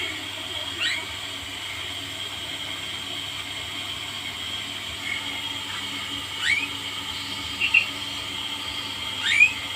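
Songbird in a cage giving short rising chirps, three upward-sweeping calls and a quick double chirp, over a steady high hiss.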